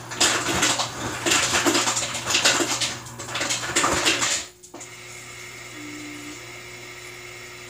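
Water running from a tap into a cup for about four and a half seconds, then shut off suddenly.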